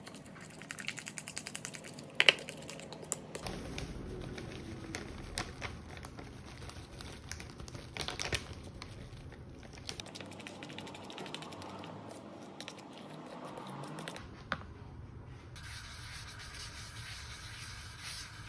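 Wooden spoon stirring eggs, oats and chocolate powder in a ceramic bowl: quick clicking and tapping of the spoon against the bowl, one sharp knock about two seconds in, and wet scraping. Near the end, a paper towel rubbing over the surface of a frying pan.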